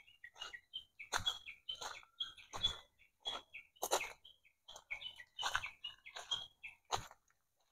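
Footsteps crunching on a loose gravel road, about one and a half steps a second, stopping near the end. Small birds chirp high in the background.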